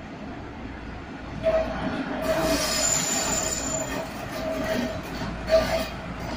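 Steel train wheels squealing against the rails as a train rolls slowly past. A steady squeal sets in about a second and a half in, with a thin high whistle over it for about a second in the middle and a louder knock or two.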